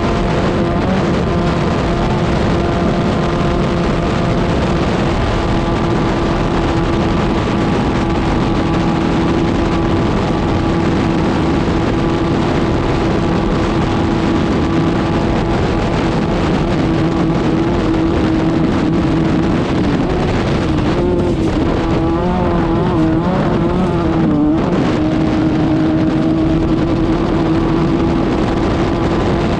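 Class 5/1600 off-road race car's air-cooled 1600 cc Volkswagen engine running hard at steady revs, over a constant rush of noise. Its note wavers up and down for a few seconds about two-thirds of the way through, then settles again.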